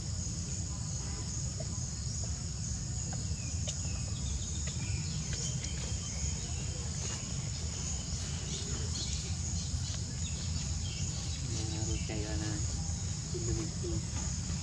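Steady high-pitched drone of insects, over a constant low rumble. Near the end come a few short pitched calls.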